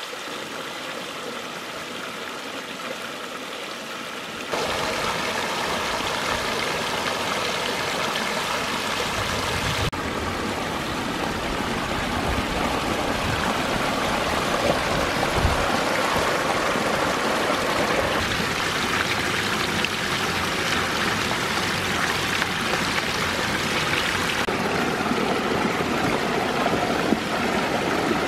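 Water running and splashing steadily down the boulders of a small pondless waterfall and stream. The sound jumps louder about four seconds in.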